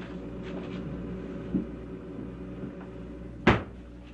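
Refrigerator freezer door swung shut with one sharp thud about three and a half seconds in, over a steady low hum.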